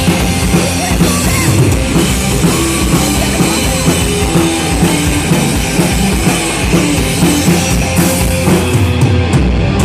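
Live rock band playing loudly, drum kit to the fore over guitar and bass.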